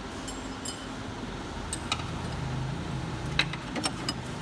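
A few sharp metallic clicks and clinks over steady background noise, with a low hum that rises about halfway through and fades near the end.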